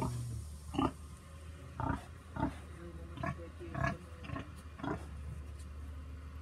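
A pig grunting about seven times in short, irregular grunts, falling quiet about five seconds in.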